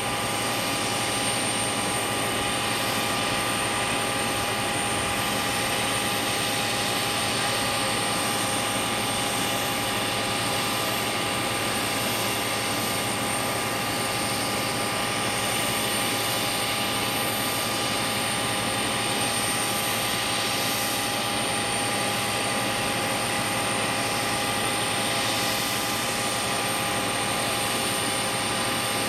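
Steady turbine whine over a constant rushing noise, as of the auxiliary power unit running on a parked Boeing 737. It holds several steady whining tones, one of them very high, without change throughout.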